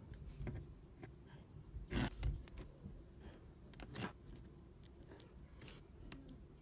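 Small clicks, scrapes and rustles of stickers being peeled off their sheet and pressed onto a 3D-printed speed cube by hand, loudest about two seconds in and again about four seconds in.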